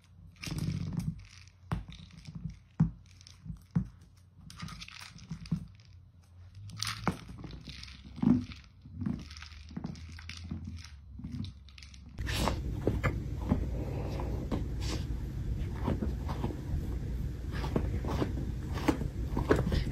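A dog knocks a plastic wobble toy across a wood floor, making a string of irregular knocks and rattles. After about twelve seconds the sound changes abruptly to a louder steady noise with scattered clicks.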